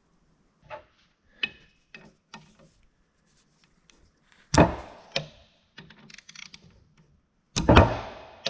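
Metal parts of a Bendix Tu-Flo 500 air compressor being handled during disassembly: a run of light clicks and taps, then two heavier knocks about three seconds apart, each ringing briefly.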